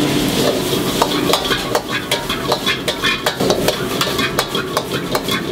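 A utensil clanking and scraping against a wok in rapid, irregular strokes as noodles are stir-fried, with the food sizzling in hot oil underneath.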